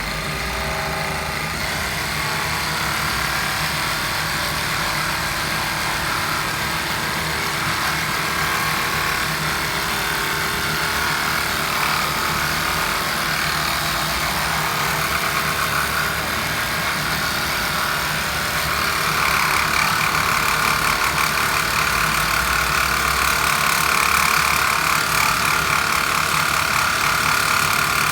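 Battery-powered Hilti cutter running under load as its blade cuts through the workpiece. The motor and blade noise is steady, then grows louder with a higher whine about two-thirds of the way through.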